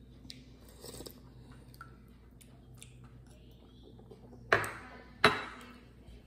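Soft slurping and small mouth sounds as broth is sipped from a metal spoon, then two loud, sudden sounds close to the microphone, a little under a second apart, near the end.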